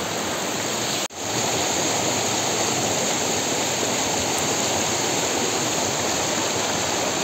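Steady rush of a fast-flowing river's current. The sound cuts out for an instant about a second in, then comes back slightly louder.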